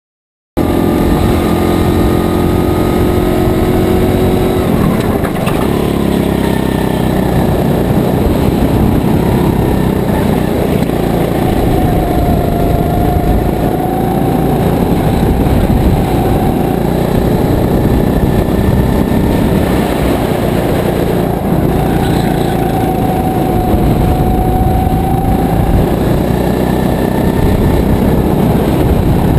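SodiKart GT4 rental kart's 270 cc single-cylinder four-stroke engine driven hard on a flying lap, heard onboard, its revs rising and falling with the corners over a heavy rush of wind and road noise. It cuts in about half a second in.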